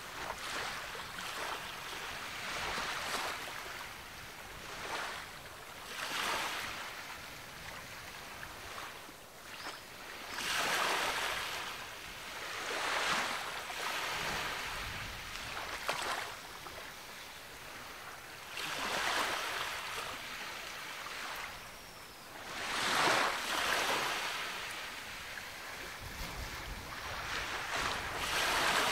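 Ocean waves breaking and washing up the beach, one after another, each swelling up and falling away every few seconds.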